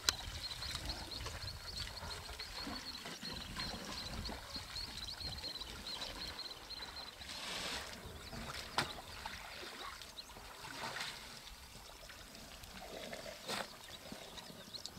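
African elephants drinking at a waterhole: water trickling and splashing from their trunks into the pool. A fast, high chirping runs through the first half, and there are a couple of short sharp clicks later on.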